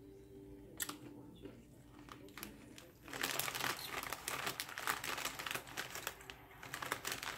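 Plastic snack bag crinkling as it is handled, beginning about three seconds in after a few faint clicks.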